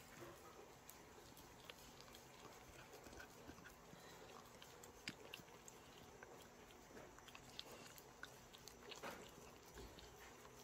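Two dogs licking and chewing food crumbs off a wooden rice paddle: faint, scattered short clicks, with a few slightly louder ones about halfway through and near the end.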